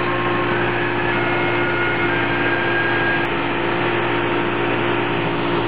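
Towboat's engine running steadily under way, a constant hum over a steady rush of noise.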